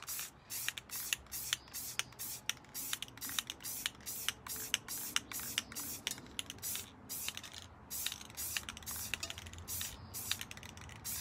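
Rust-Oleum aerosol spray paint can hissing out in short, quick spurts, about three a second with a few brief pauses, misting paint onto a tumbler.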